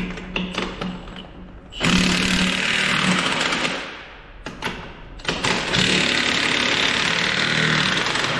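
Impact wrench hammering on a tractor's front wheel nuts, in two long bursts: the first about two seconds in, the second from about five seconds in, after a few short clicks.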